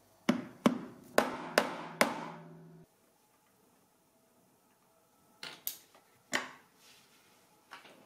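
A screwdriver knocking a new dishwasher door spring into its plastic holder: five sharp knocks in quick succession, each with a brief ring, which stop suddenly. A few lighter clicks follow in the second half.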